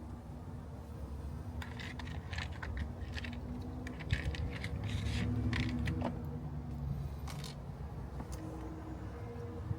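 Scattered small clicks and rattles of hand tools and a battery cable being handled, in two clusters, over a low steady hum.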